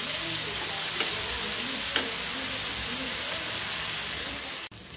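Pomfret pieces coated in green masala sizzling as they shallow-fry in hot oil in a pan, a steady hiss with a couple of light clicks. The sizzle drops sharply in level near the end.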